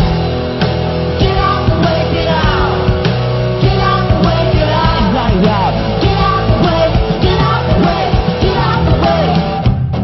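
Music: a song with a singing voice over a steady backing.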